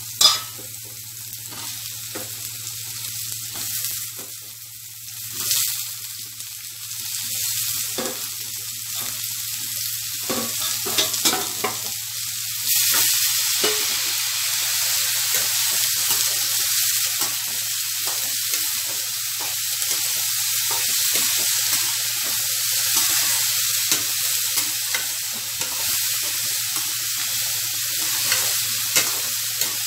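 Cauliflower pieces frying in oil in a metal kadai, with a steel spoon scraping and clicking against the pan as they are stirred and sautéed. The sizzling gets louder about thirteen seconds in and stays steady after that.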